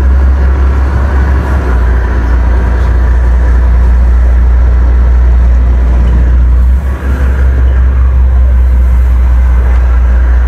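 Boat engine running with a loud, steady low rumble that dips briefly about seven seconds in.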